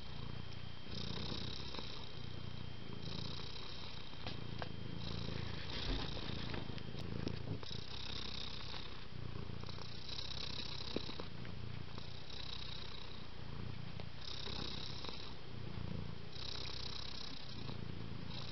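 Domestic cat purring steadily, a low rumble that swells and fades in a regular breathing rhythm about every two seconds.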